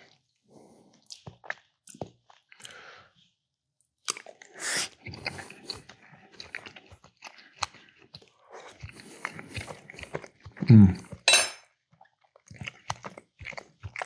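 Close-miked chewing of mac and cheese, with wet mouth smacks and scattered clicks, and a short low hum of approval about eleven seconds in.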